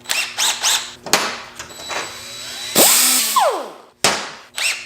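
Handheld power tool such as a drill or grinder, run in short bursts: the motor spins up and winds down several times. After one longer run near the middle it coasts down with a falling whine.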